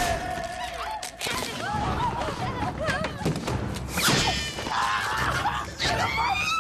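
Cartoon slapstick soundtrack: high-pitched squealing and chattering with several crashes and thuds.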